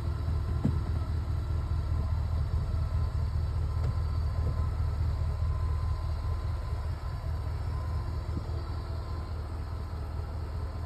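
Powered rooftop tent's electric lowering mechanism running steadily as the tent closes, a steady low hum with a couple of small clicks near the start.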